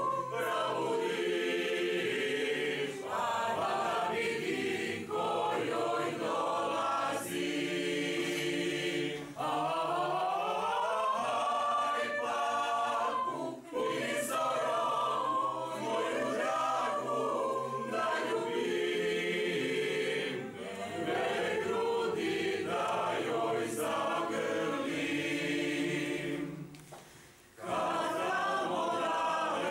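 Mixed choir of men's and women's voices singing unaccompanied, in sustained phrases, with a short break near the end before the next phrase begins.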